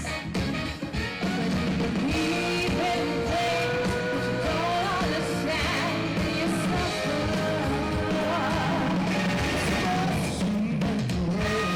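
Rock-style music with a singing voice over a steady bass and beat.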